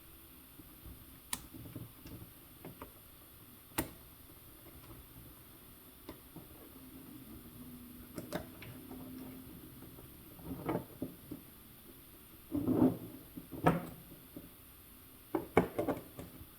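Small metal track links and clips of an RC crawler loader clicking and knocking as they are handled and fitted by hand: a few sharp ticks early on, then denser clusters of louder clacks in the second half.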